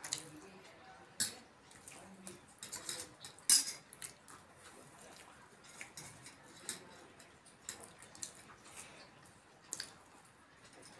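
Steel spoons clinking now and then against steel bowls and plates, in scattered sharp clinks, the loudest about three and a half seconds in.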